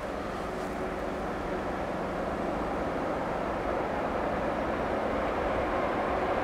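Distant rumble of an approaching train hauled by a DB class 152 electric locomotive, a steady noise growing gradually louder.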